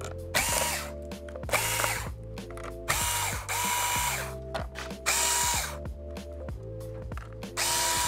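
Cordless electric screwdriver whirring in about five short bursts, each pitch rising briefly as the motor spins up, while it backs small screws out of a laptop's bottom cover. Quiet background music runs underneath.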